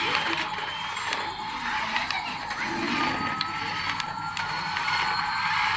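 Small electric motor and plastic gears of a battery-powered remote-control toy whirring, with scattered clicks and a faint tone rising slowly over the second half.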